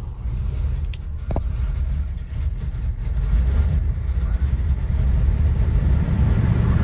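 A stone-cold 1966 Ford F100 engine started and running on its manual choke: a steady low rumble that grows a little louder about three seconds in.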